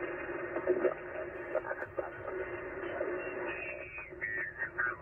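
HF transceiver's speaker on 40-metre lower sideband: steady band hiss with garbled, unintelligible voice splatter from an adjacent station bleeding over from just above the frequency, the interference (QRM) called a racket.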